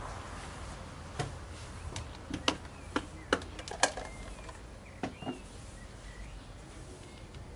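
A string of sharp clicks and taps of tableware being handled on a table, bunched between about one and five seconds in. Birds chirp faintly in the background.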